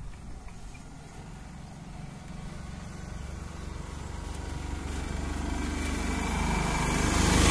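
Honda Activa scooter's small single-cylinder engine idling with a steady low putter, and a hissing noise growing louder toward the end.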